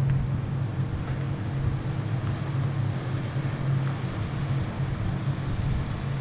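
City traffic noise dominated by a steady low engine hum, with a brief high thin squeal about a second in.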